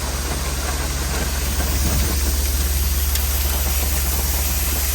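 An engine running steadily at idle, a deep pulsing hum with a constant hiss over it.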